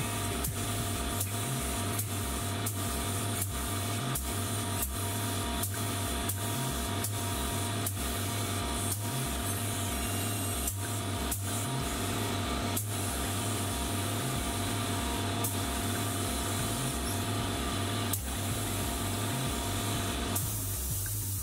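Compressed-air gravity-feed spray gun hissing steadily as it sprays epoxy primer onto sheet metal, cutting off about a second before the end. Background music with a steady beat and bass line plays underneath.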